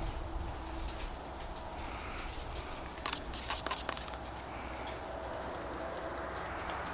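Paintbrush rinsed in a small metal water cup, clicking against the tin several times in quick succession about three seconds in, over a steady low background noise.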